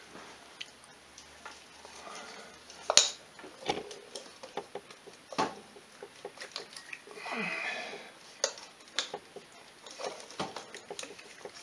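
Scattered light metal clicks and knocks as a two-stroke cylinder jug is worked down over the piston and rings by hand, with one sharper click about three seconds in.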